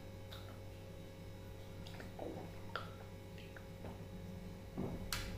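Soft, scattered eating sounds as fingers mix rice and fish curry on a plate: a few small, faint clicks and squishes over a steady low hum.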